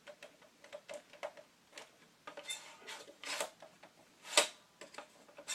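Irregular clicks, knocks and light scraping as an airsoft FAMAS rifle is handled and its parts are worked, with one sharper knock about four seconds in.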